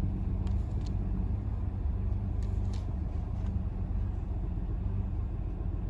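The 2005 Lexus ES 330's 3.3-litre V6 running steadily, a low rumble and hum, with a few light clicks over it. The engine is still cold and has an intermittent misfire that has not set a code.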